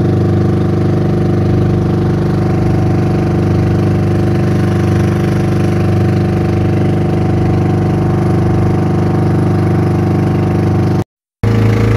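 Engine of a small motorised outrigger boat running steadily under way. It cuts out for a split second near the end, then comes back at a slightly different pitch.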